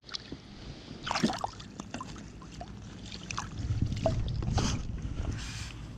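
Water splashing and dribbling, with scattered short clicks and rustles of handling, over a low steady rumble. There are brief louder splashes about a second in and again near the middle and end.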